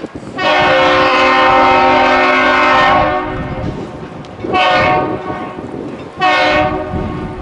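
Ship-and-bridge salute horn sounding one long blast of about two and a half seconds, then two short blasts. This is the signal exchanged between a lake freighter entering the canal and the Aerial Lift Bridge.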